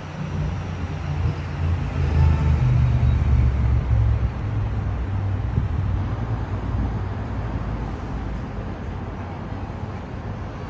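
Road traffic, with a vehicle's engine running low and steady, loudest in the first few seconds and then slowly fading.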